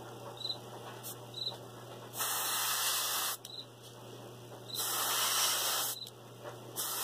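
Airbrush spraying paint in short, light bursts of hiss, each about a second long, starting about two, five and seven seconds in. A steady low hum from the air compressor runs underneath.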